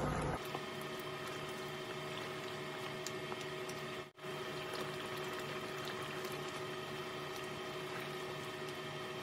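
Thick beef curry simmering and bubbling in a pot while it is stirred with a wooden spatula, with a faint steady hum underneath. The sound drops out for a moment about four seconds in.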